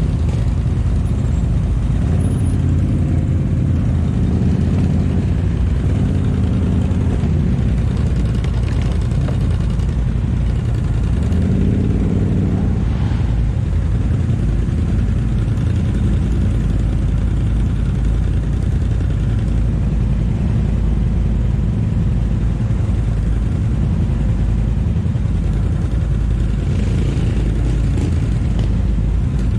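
ATV engine running under load, a heavy low rumble whose pitch rises and falls a few times in the first half.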